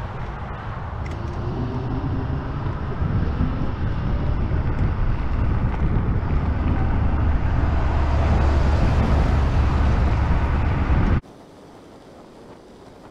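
Wind buffeting the microphone of a camera on a moving electric scooter, a dense rushing noise that grows steadily louder. About eleven seconds in it drops suddenly to a much quieter hush.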